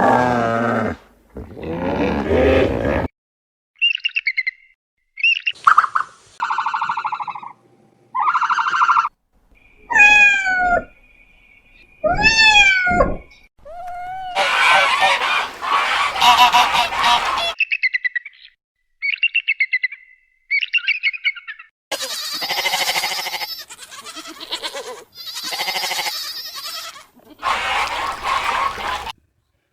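A string of different animal calls, each a short clip cut off sharply with a brief silence before the next. Bird and fowl calls are among them, some chirping and some honking with falling pitch.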